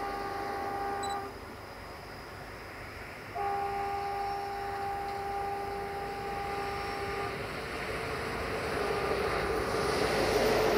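Approaching train's horn sounding twice: one blast ends about a second in, then a longer blast of about four seconds follows. After it the train's running noise grows steadily louder toward the end.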